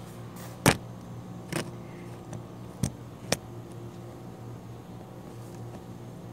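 A few sharp knocks and taps from a camera phone being handled and set in place, the loudest less than a second in, over a steady low machine hum.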